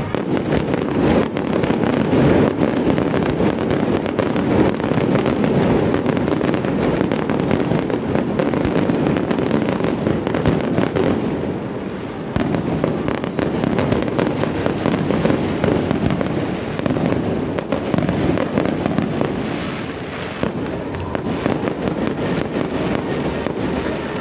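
Fireworks display's closing barrage: a dense, continuous rattle of shell bursts and crackling, easing briefly about halfway and thinning near the end.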